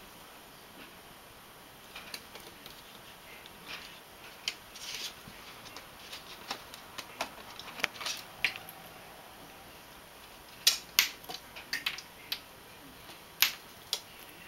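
Dry, brittle plant stems rustling and clicking as a kitten bats and bites at them, in irregular short crackles with a few louder snaps in the last third.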